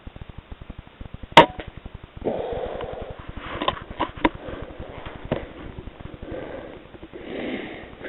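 A single sharp rifle shot about a second and a half in, the loudest sound. It is followed by rustling and several sharp clicks over the next few seconds.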